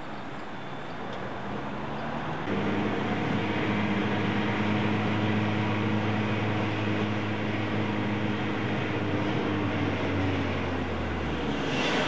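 Car engine and road noise heard from inside the cabin while driving slowly, a steady low hum. Near the end the engine note drops in pitch as the car slows. Before the hum sets in, about two seconds of open street traffic noise.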